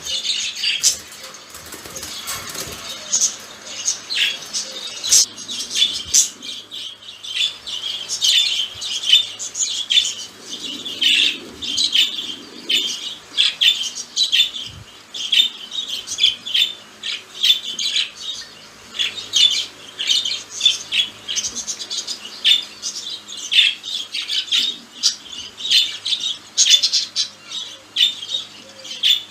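Budgies (budgerigars) chattering, a continuous run of quick, short, high chirps and squawks.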